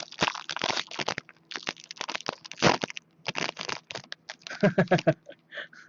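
Wrapper of a Score hockey card pack crinkling and tearing as it is opened, then the cards rustling as they are handled, in a quick run of irregular crackles.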